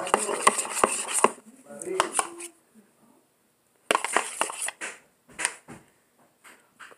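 A spoon clinking and scraping against a bowl while stirring a glue-and-water slime mixture. There is a quick run of clicks, then a pause, then another busy run of clicks about four seconds in.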